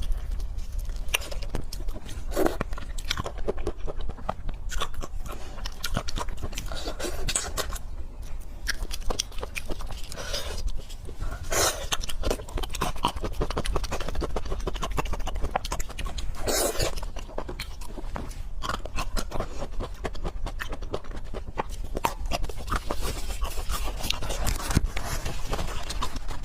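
Close-miked chewing of spicy pork leg curry and rice: steady wet chewing and lip smacks with crunchy bites, a few of them louder.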